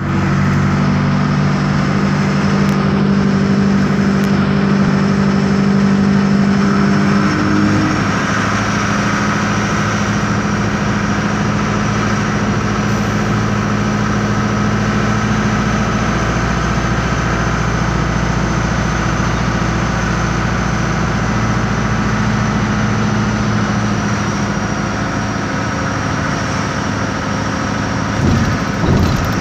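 The air-cooled Deutz diesel engine of an Otokar M-2000 midibus running loud, heard from inside the cabin, with a steady high whine above the engine drone. The engine note shifts about eight seconds in and again midway, and a couple of short knocks come near the end.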